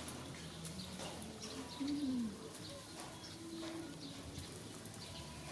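A dove cooing softly twice, a short rising-and-falling coo followed by a steadier one, over quiet room noise.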